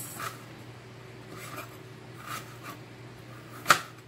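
Kitchen knife slicing peeled ginger on a plastic cutting board: a few soft cuts and taps, then one sharp knock of the blade on the board near the end.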